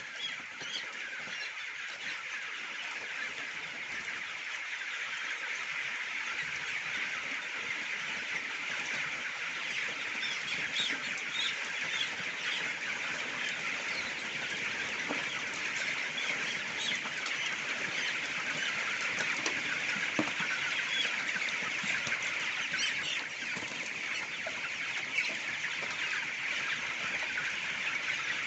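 A large flock of broiler chickens in a chicken house, a dense, steady chatter of many overlapping calls.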